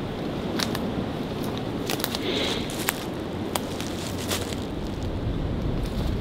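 Footsteps crunching through dry leaves and brush: a run of scattered crackles and snaps, over a low rumble of wind on the microphone.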